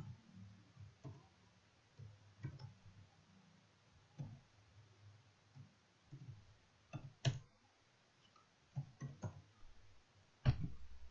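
Computer keyboard keystrokes, typed slowly and irregularly, a single click every second or so, with a louder knock near the end.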